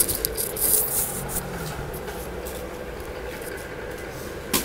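Thick ribbed cotton mats being shifted and rubbed against one another on the floor: a scraping rustle, strongest about a second in, with a few sharp clicks from handling.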